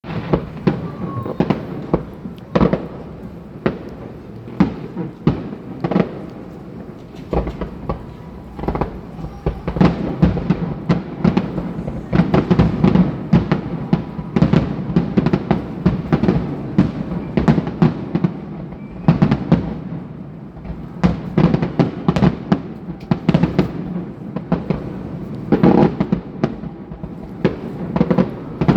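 Fireworks display: aerial shells bursting in a steady run of booms and sharp cracks over a continuous rumble. The bursts come thickest about halfway through and again near the end.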